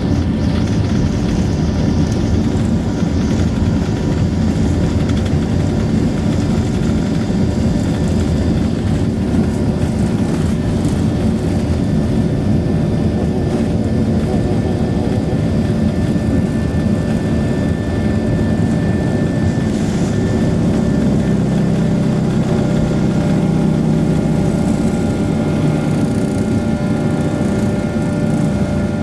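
Boeing 737-800's CFM56-7B turbofan engines at takeoff thrust, heard inside the cabin: a loud, steady low rumble with several steady whining tones above it, swelling up right at the start.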